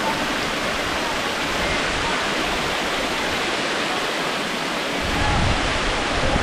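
Waterfall pouring steadily, a dense rushing of water, with a deeper rumble coming in about five seconds in.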